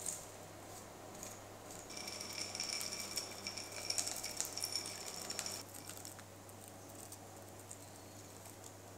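Chopped hazelnuts and chocolate chips scattered from small glass bowls onto cake batter: a light patter of falling pieces with clinks of spoon and glass, busiest from about two to five and a half seconds in. A steady low hum runs underneath.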